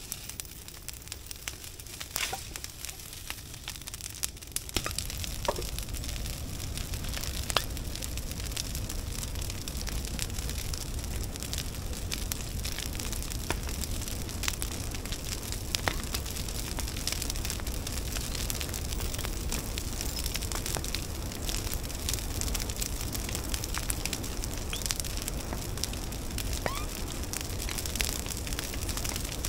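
Brush pile fire burning, crackling with scattered sharp pops over a steady low rush that grows louder about five seconds in.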